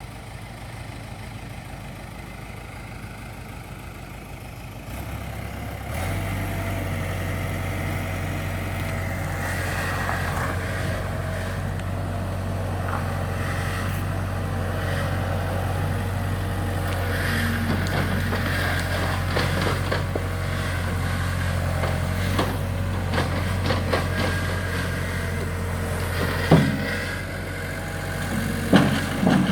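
Case 1845C skid steer's diesel engine running, stepping up louder about five seconds in, with scattered knocks and clanks and two sharp bangs near the end.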